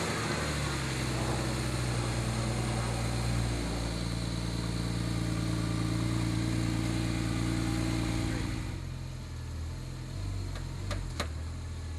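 Porsche 997.2 Turbo's 3.8-litre twin-turbo flat-six idling on its stock exhaust just after a start, holding a raised cold-start idle that drops to a lower, quieter idle about nine seconds in. Two sharp clicks near the end.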